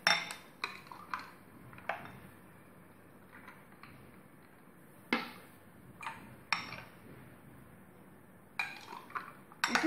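Glassware clinking as a drinking glass scoops tomato juice from a glass bowl and is tipped into ice-filled glasses: a scattering of sharp clinks, several in the first two seconds and a few more later, with quiet between.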